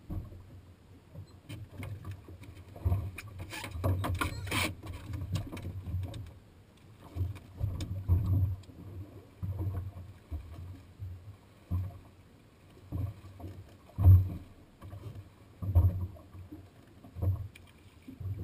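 Waves slapping against the fibreglass hull of a drifting Key West fishing boat: irregular low thuds, one or two a second, the loudest about fourteen seconds in. There is a brief rush of noise around four seconds in.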